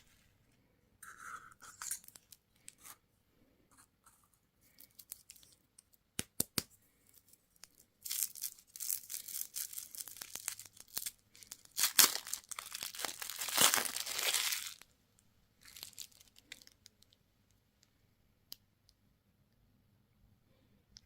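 Candy wrapper being crinkled and torn open. Scattered rustles and a few sharp clicks are followed by a long, dense stretch of tearing and crinkling through the middle, with one sharp snap, then a brief final rustle.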